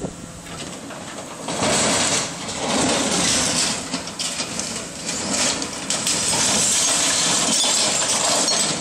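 Excavator demolishing a brick building: masonry and rubble crashing and clattering down, loud from about a second and a half in and carrying on steadily.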